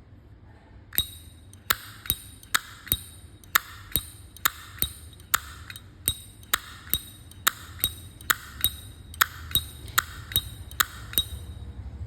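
Vintage 1960 solid-brass Zippo lighter's hinged lid flicked open and snapped shut over and over: sharp metallic clicks about two a second, each with a bright ringing ping, starting about a second in.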